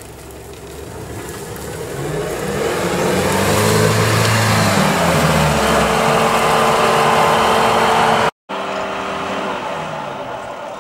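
UAZ-469 off-road vehicle's engine running as it drives closer and past, growing louder to a peak midway. About eight seconds in the sound cuts off abruptly, and another engine follows, running quieter.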